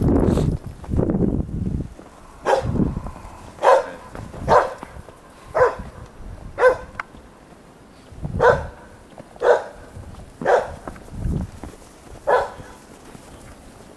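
Alabai (Central Asian Shepherd dog) barking, about nine short barks roughly a second apart, with a brief pause midway. A low rumbling noise comes before the barks.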